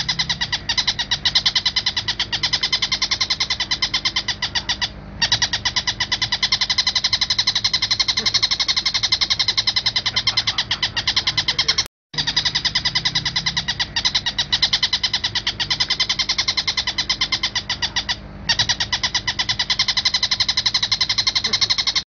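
Oriental dollarbird (tengkek buto) calling in a rapid, unbroken run of many notes a second, played as a masteran recording used to teach cage songbirds its call. The run breaks off briefly about five, twelve and eighteen seconds in.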